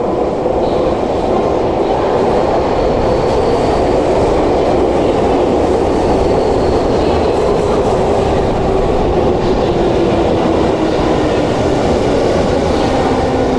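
Tokyu 5000-series electric train with its Hitachi IGBT VVVF inverter, running past along a subway platform: steady rumble of wheels and motors with an inverter whine that slowly falls in pitch.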